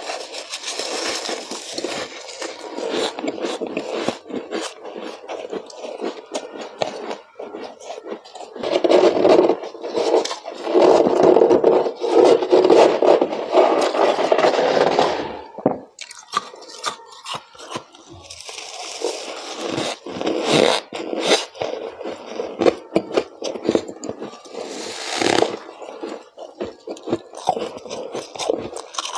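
A gloved hand scraping and crushing thick, fluffy freezer frost, with a crunching, crackling scrape that is loudest for several seconds in the middle.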